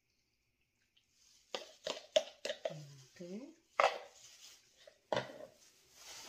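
Sharp knocks and clatter of a plastic measuring cup against a stainless steel mixing bowl and a stone counter, about half a dozen in irregular groups.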